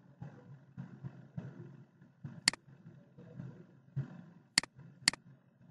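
Three sharp computer mouse clicks, about two and a half seconds in, then two more close together near the end, over faint low background noise.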